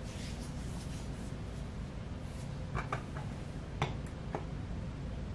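Quiet room tone with a steady low hum, broken by a few faint clicks about three and four seconds in.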